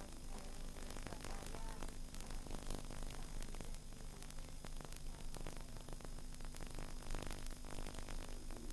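Steady hiss and low hum of a worn VHS tape recording, with scattered faint crackles.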